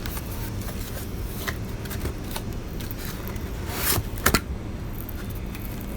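Plastic cover of a freezer compressor's terminal box being worked open by hand: small scrapes and clicks, a rising scrape just before the middle and two sharp snaps right after it, over a steady low hum.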